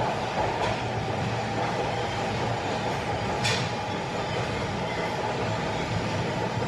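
Subway train running through a station, a steady rumble with rail noise. A sharp click of metal comes about three and a half seconds in.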